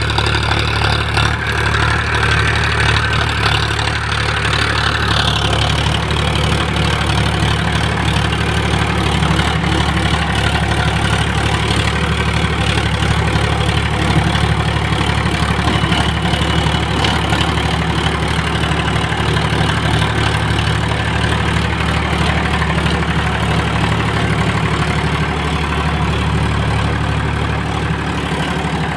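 Powertrac Euro 50 tractor's three-cylinder diesel engine running steadily as it pulls a 2-metre rotavator tilling soil.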